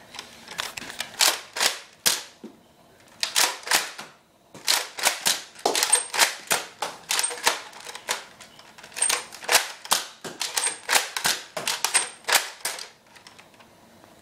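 Plastic Nerf dart blaster being primed and fired over and over: sharp plastic clacks and pops in quick runs of a few a second, a few dozen in all, with short pauses between the runs.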